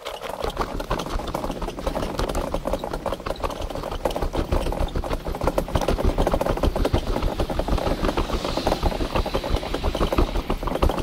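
Continuous rough rustling and low rumbling of a handheld camera being carried along at a walk, made of many rapid, irregular knocks and scrapes.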